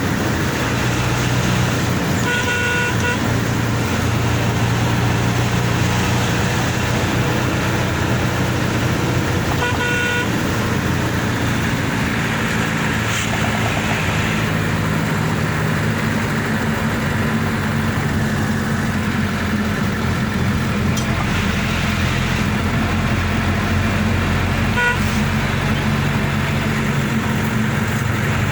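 Motor vehicle engine running steadily, its pitch shifting now and then. Short horn toots sound about two seconds in, about ten seconds in, and briefly near the end.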